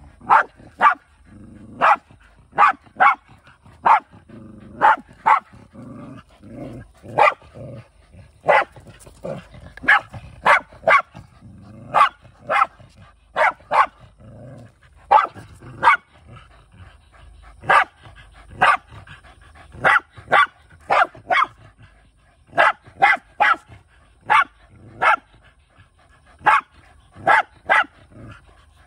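A dog barking sharply and over and over, often two or three barks in quick succession, with a low growl at times between them. It is barking at another dog that is standing over a caught animal.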